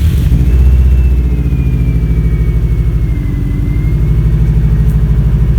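Bugeye Subaru WRX's turbocharged flat-four engine firing up through a freshly installed HKS Carbon-Ti cat-back exhaust, loudest for about the first second, then settling into a steady, pulsing idle. A faint high whine runs over it.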